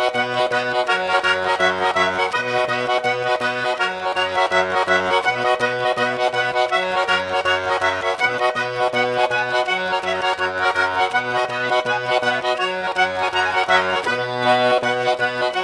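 Instrumental background music led by an accordion, with a steady rhythmic bass line.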